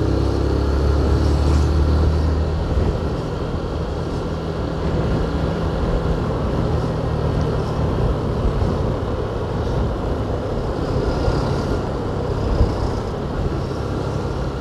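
Vehicle driving in city traffic: steady low engine hum and road noise, the hum strongest in the first few seconds.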